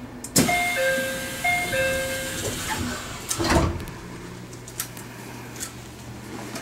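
Train door chime, a descending two-note tone played twice, followed by a thump about three and a half seconds in, over the train's steady low hum.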